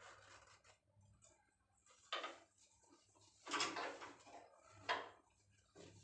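Fabric and a zipper being handled and laid on a sewing machine table: a few soft rustles and light knocks, the loudest about three and a half seconds in.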